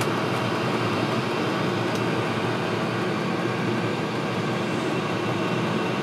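Diesel air heater running, a steady, even rushing noise of its burner and combustion fan.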